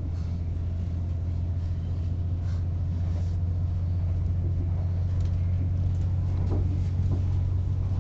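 Class 185 diesel multiple unit running, heard inside the carriage: a steady low rumble with a few light knocks and rattles.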